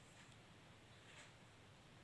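Near silence: faint room tone in a pause between speech.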